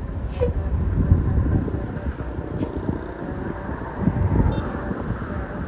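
Vehicle engines running, a steady low rumble of traffic with a few short clicks.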